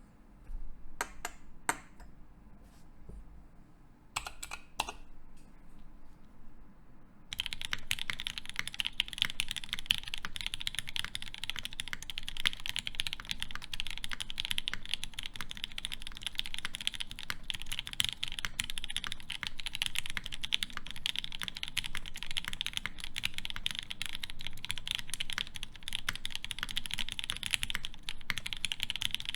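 Typing on a KFE CE mechanical keyboard with lubed Gateron Ink Black linear switches, a polycarbonate plate and GMK keycaps. A few separate keystrokes come first, then fast continuous typing from about seven seconds in.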